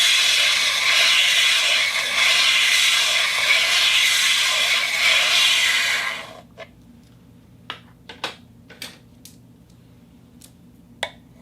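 A turntable making a loud, steady hissing rush for about six seconds, which then fades away. After it comes a quiet stretch with scattered sharp clicks and pops, like a stylus on vinyl.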